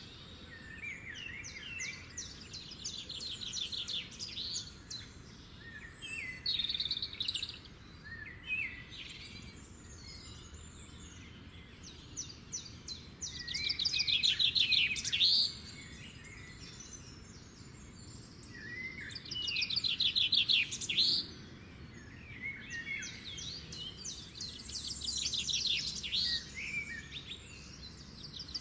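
Songbirds singing: rapid high trills and chirps in phrases that repeat every few seconds, over a faint steady background hiss.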